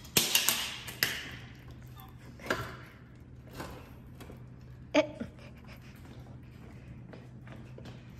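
Metal clanks and knocks from a manual gearbox being worked loose from the engine and slid back on a transmission jack. A cluster of loud clanks comes in the first second, then single knocks about two and a half and five seconds in, the second with a short metallic ring.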